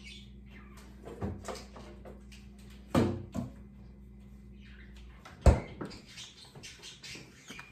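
Refrigerator door being swung shut with a loud thud about five and a half seconds in, after a few knocks and rattles of things being taken from inside it. A steady low hum stops just before the thud.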